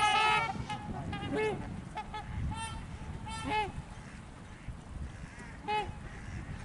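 A flock of geese honking: many calls overlapping at first, then thinning to single honks spaced a second or more apart.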